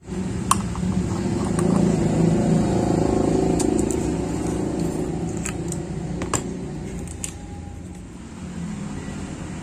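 A steady low rumble, loudest in the first few seconds, with a few sharp clicks and scrapes of a metal blade on a lamp's corroded screw base.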